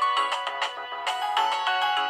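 Preloaded ringtone of a Nokia 6085 mobile phone playing: a brisk melody with several notes sounding together.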